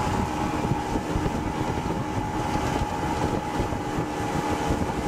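Mercury tiller outboard motor running steadily, pushing the boat along under way, with wind buffeting the microphone.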